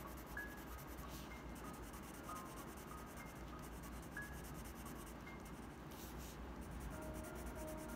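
Graphite pencil scratching steadily across paper as it shades a dark patch of a sketch, with a couple of brief brighter scratches.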